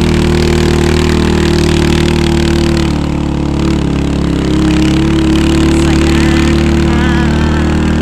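Motorcycle engine running under steady throttle while the bike climbs, heard from the rider's seat. The engine eases off slightly about three seconds in, then pulls steadily again.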